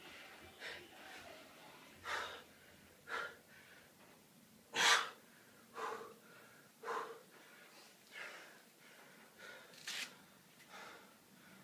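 A man breathing hard from the exertion of push-ups, with loud gasping breaths about once a second. The loudest comes about five seconds in.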